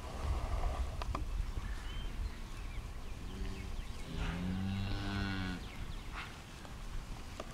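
Shorthorn cow mooing twice: a short low moo about three seconds in, then a longer one right after.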